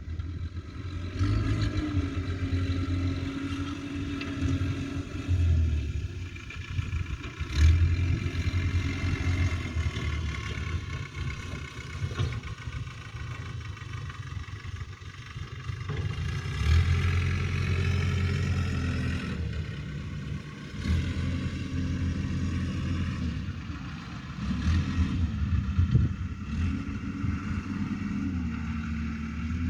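Diesel engine of a JCB backhoe loader running, repeatedly revving up and dropping back as it works under varying load.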